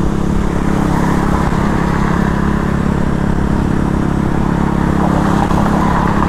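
KTM Duke motorcycle's single-cylinder engine running at a steady cruise, with wind and road noise from riding.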